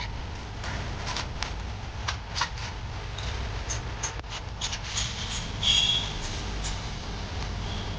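Scattered small clicks and taps of hard objects being handled, with a brief high squeak about six seconds in, over a steady low hum.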